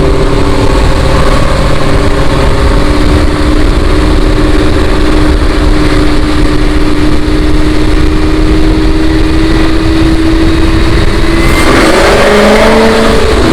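Supercharged 427 LSX V8 of a Camaro ZL1 running loudly at a nearly steady engine speed, then its pitch swings up and back down near the end as a higher whine joins in.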